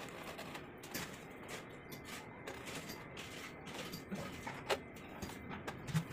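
Faint, irregular clicks and scrapes of hand tiling work: a trowel and mortar worked against ceramic wall tile, with a sharper knock about four and a half seconds in.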